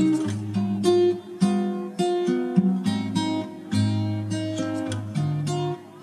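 Background music: an acoustic guitar playing plucked notes and chords, each note starting sharply and fading.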